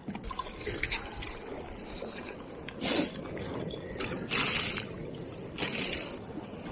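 Sea water washing against a rocky shore, with a few short louder rushes, mixed with scraping and rustling as fishing tackle is handled.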